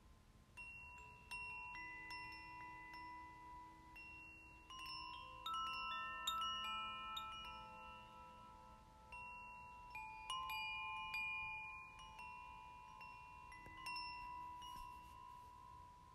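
Wind chimes ringing: irregular strikes at several different pitches, each note ringing on for seconds and overlapping the next, in clusters that come and go.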